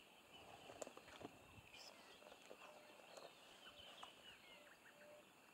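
African wild dogs feeding on an impala carcass: faint tearing, chewing and bone-snapping with scattered sharp clicks, and a few short squeaky notes in the second half.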